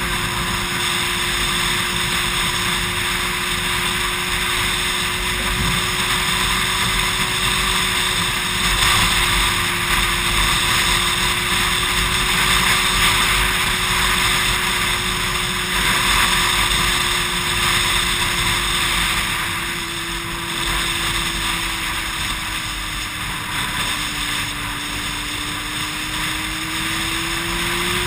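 Yamaha R6 inline-four sport bike with a Yoshimura aftermarket exhaust, running at a steady cruise with wind rushing past. The engine note sags slightly past the middle, then rises near the end as the bike accelerates.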